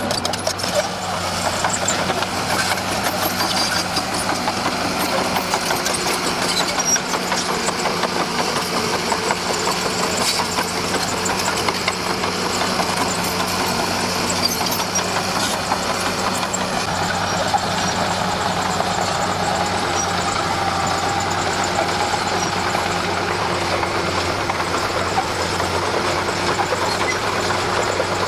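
Diesel engine of a Komatsu D41P crawler bulldozer running steadily at working revs.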